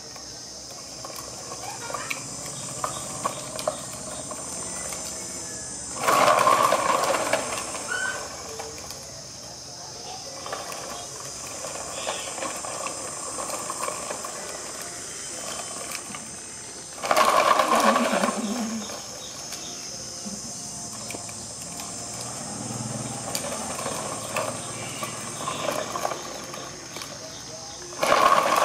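Plastic toy dump truck rattling and rolling over paving tiles as it is pulled along by a string, in three loud bursts of a second or two each: about six seconds in, about seventeen seconds in, and near the end. A steady high buzz runs underneath throughout.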